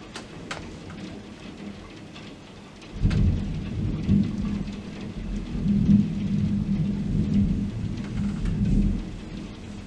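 Heavy rain falling steadily, with a clap of thunder that breaks in suddenly about three seconds in and rumbles low for about six seconds, swelling several times before fading.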